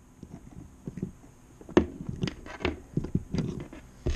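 Handling noises of an RC car motor being unclipped and lifted off a motor test stand: irregular clicks, knocks and rattles, with a sharp knock about two seconds in and another near the end.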